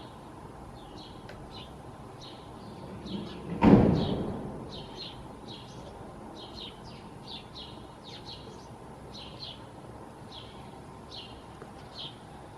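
A small bird chirping over and over, short high chirps about twice a second, over a steady background hiss. About a third of the way in, a loud bump dies away over about a second.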